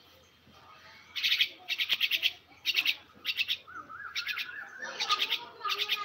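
A myna calling in repeated short, harsh chattering bursts, starting about a second in. A lower wavering trill runs between them just before the end.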